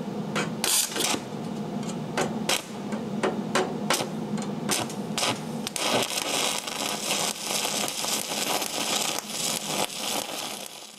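Stick-welding arc from a 1/8-inch Lincoln Electric 7018 electrode on carbon steel angle. For the first several seconds there are separate sharp crackles and pops as the arc is struck. From about halfway in, a steady, dense crackling sizzle takes over as the arc runs continuously along the joint.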